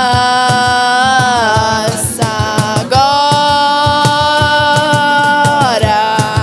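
Singing in long held notes that glide from one pitch to the next, over steady rhythmic strumming.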